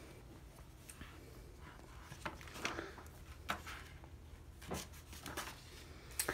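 Hardcover picture book being opened and its pages turned by hand: several short, soft paper swishes and rustles, the loudest near the end.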